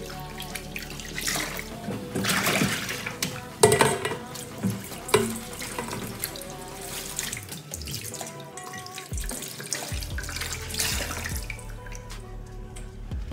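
Kitchen tap running into a stainless steel sink and metal bowl, with splashing as dishes are rinsed by hand and a sharp knock a little under four seconds in. Background music plays underneath.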